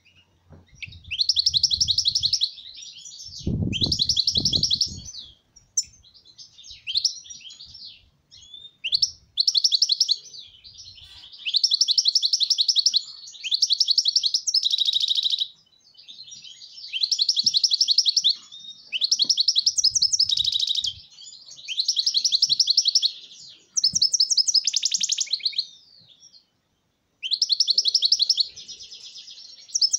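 European goldfinch singing: about a dozen short bursts of fast twittering song with buzzy trills, each a second or two long with brief pauses between. A few low thumps come about four seconds in.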